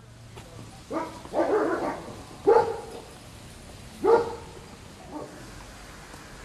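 A dog barking about five times at uneven intervals, the last bark fainter.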